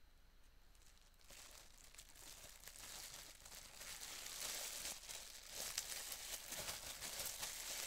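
Crinkling plastic packaging handled by hand, a busy crackle of small ticks that starts about a second in and grows louder toward the end.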